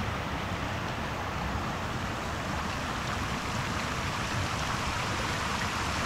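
Steady rushing of flowing water from a stream.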